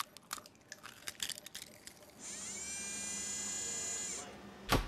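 A small electric motor whines, rising in pitch as it spins up and then holding steady for about two seconds before stopping. It comes after a run of light mechanical clicks, and a single thump follows near the end.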